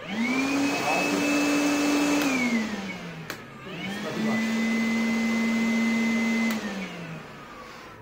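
Makita DVC750LZ 18-volt cordless vacuum switched on, spinning up to a steady motor hum with a high whine for about two seconds, then winding down. After a click it runs again at a noticeably lower pitch for a few seconds and winds down once more: its high and low speed settings.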